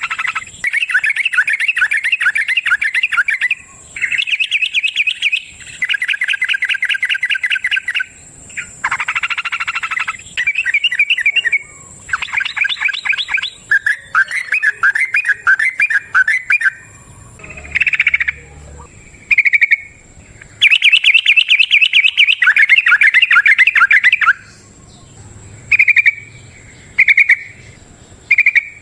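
Yellow-vented bulbul singing its long, rapid rippling song in repeated bursts of one to three seconds with short pauses, ending with a few short calls.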